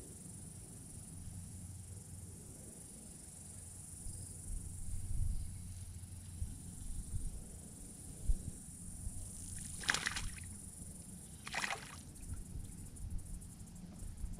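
Crickets or other insects buzzing steadily at a high pitch, over a low rumble. About ten and again about eleven and a half seconds in come two short splashes: a small hooked sunfish thrashing at the water's surface as it is reeled in.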